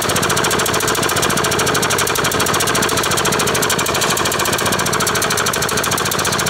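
Rover lawn mower's small petrol engine running steadily and loudly with a rapid, even firing beat. It runs poorly: the owner finds it weak and slow, giving out a lot of black smoke, and says it stalls if pushed faster, even after a new spark plug.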